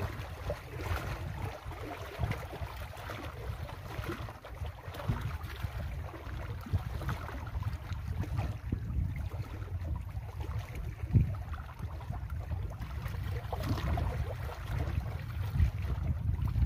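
Wind buffeting the microphone over small waves lapping against lakeshore rocks, a steady low rumble with a splashy hiss on top. A single sharp knock about eleven seconds in.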